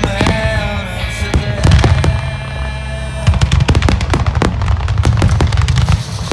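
Fireworks shells bursting and crackling over loud music played with the display. The bursts become dense and rapid about halfway through, in a finale barrage.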